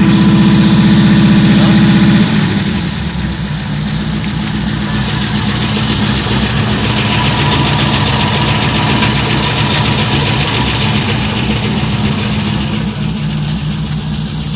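Pontiac GTO V8 engine running loud for about two seconds, then settling to a steady idle with a constant high-pitched sound over it. This is the noise the owner fears is a crankshaft bearing or a still-faulty clutch after a new slave cylinder and stage 2 clutch were fitted.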